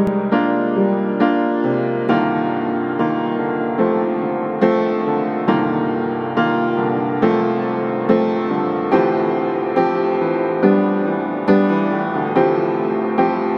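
Background piano music, notes and chords struck in a steady pulse, the strongest a little under a second apart.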